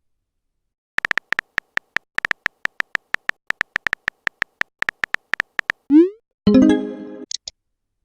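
Electronic typing-sound blips of a text-message chat, a quick irregular run of short beeps. Then a short rising swoosh of a message being sent, and a brief chime-like tone near the end.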